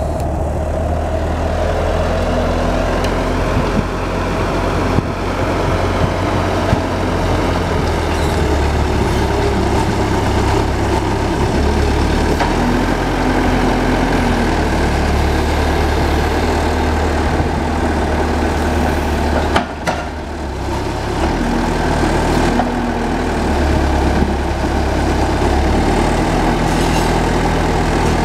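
Bobcat A300 skid-steer loader's diesel engine running as its pallet forks lift and carry two heavy logs, the engine note rising and falling with the load. A few sharp knocks come between about four and seven seconds in.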